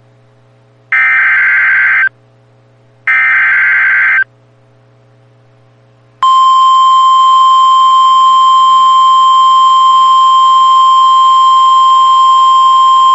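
Emergency Alert System SAME header data bursts, two raspy one-second screeches a second apart, announcing a new alert. About six seconds in, the steady 1050 Hz NOAA Weather Radio warning alarm tone starts abruptly and holds, signalling a warning-level alert (here a severe thunderstorm warning).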